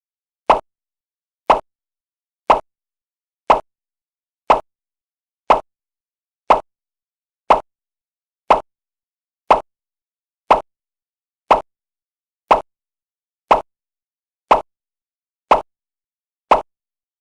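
A short, identical sound effect repeated once a second, about seventeen times, with silence between.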